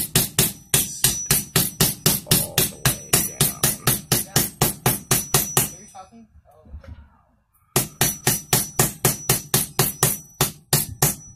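A regular hammer tapping a Pro Moto Billet Fastway spark arrestor insert down into the end of a Honda CRF250R's stock exhaust canister: a quick, even run of about four to five taps a second with a thin metallic ring. The taps stop for about two seconds a little past halfway, then go on again until near the end. The taps seat the insert fully in the canister.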